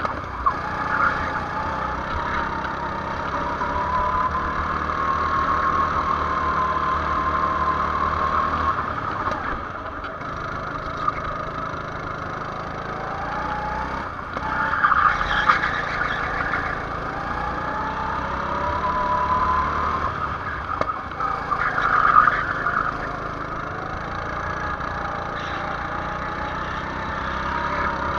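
Go-kart engine heard onboard, its pitch rising as it revs up and falling off when the throttle is lifted for the corners, several times over the lap. Two short bursts of rushing noise, about halfway through and again a few seconds later, are the loudest moments.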